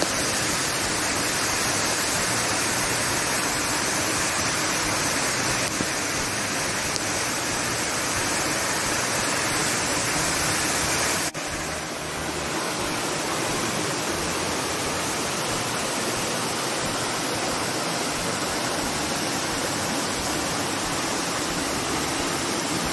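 Steady rush of a waterfall pouring over tiered rock ledges. About halfway through it gives way to the rush of a cascade tumbling over boulders.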